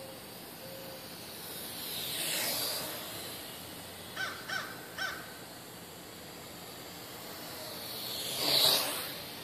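A small quadcopter's rotors whooshing past close by twice, each pass swelling and fading, the second near the end the louder. In between, a crow caws three times.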